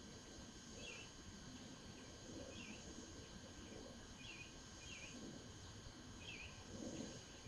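Faint, short bird chirps repeating every second or so, over a steady high insect drone and a soft low wash of lake water.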